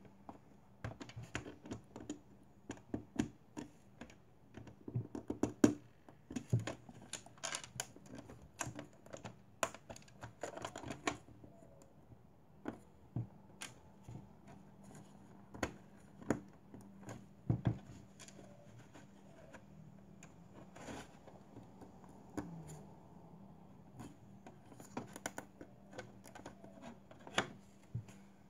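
Small plastic Lego parts clicking and tapping as fingers handle them and press them onto a minifigure and a baseplate: irregular sharp clicks, close together for the first dozen seconds, then sparser.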